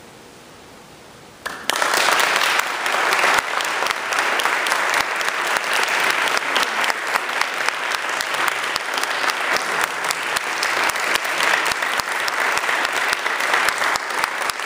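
Audience applause breaking out suddenly about a second and a half in, after a short quiet stretch of room hiss, then carrying on as dense, steady clapping.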